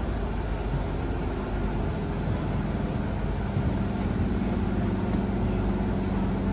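Steady hum and low rumble of a stationary Tangara electric train's onboard equipment, heard from inside the carriage.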